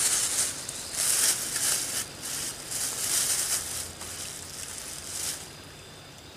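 Close rustling and scuffling from a person moving and handling things in the grass, in several irregular bursts of a second or less, dying away about five seconds in.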